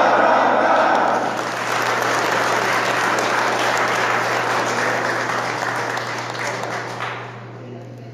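A crowd applauding, the clapping dying away about seven seconds in.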